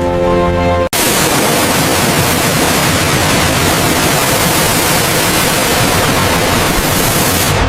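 A few held music tones, then an abrupt cut about a second in to loud, steady static hiss like white noise, which stops suddenly just before the end.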